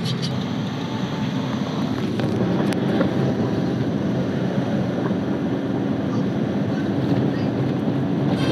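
A vehicle driving steadily, with a constant low rumble from the engine and road.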